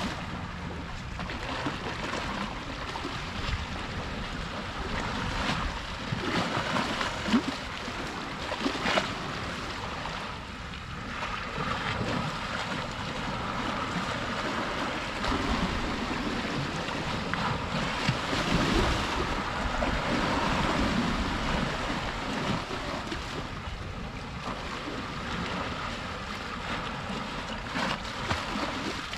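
Small sea waves washing and lapping against the shore, swelling and easing in loudness, with wind buffeting the microphone.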